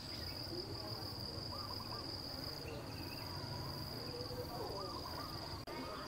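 An insect trilling: one steady, high-pitched trill, with a brief dropout near the end.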